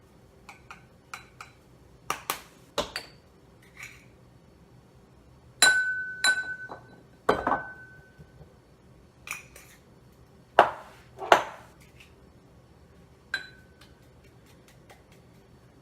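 Spice containers clinking and knocking against a dish in irregular taps while ground spice is shaken in. Several of the strikes ring briefly with a clear glassy note.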